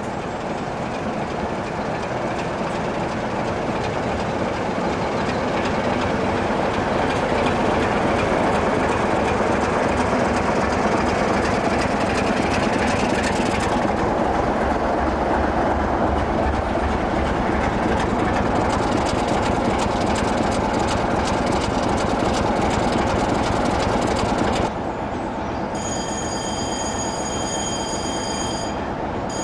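Class 33 'Crompton' diesel locomotive, its Sulzer eight-cylinder engine running as it approaches and passes close by, growing louder toward the middle. About 25 s in the sound drops, and a steady high-pitched squeal sets in, broken briefly near the end.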